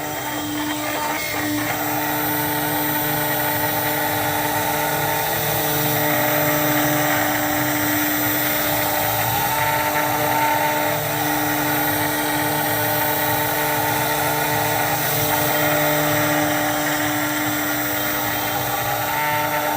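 CNC router spindle running steadily, cutting UHMW plastic: a constant whine at several pitches over the hiss of the cut.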